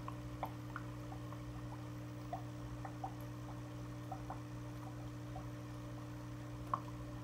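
Aquarium filter running: a steady low hum with faint, irregular drips and small bubbling pops of water.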